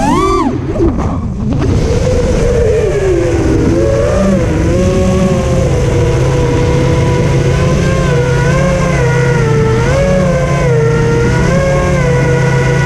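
FPV quadcopter's brushless motors and propellers whining, heard through the onboard camera with a low wind rumble. About half a second in the pitch shoots up and drops away as the throttle is punched and cut. After that it holds a steady whine that wavers up and down with small throttle changes.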